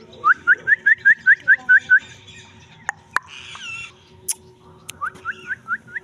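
Rose-ringed parakeet chirping: a quick run of about ten short rising chirps, about five a second, then a few clicks, then a second shorter run of about five chirps near the end.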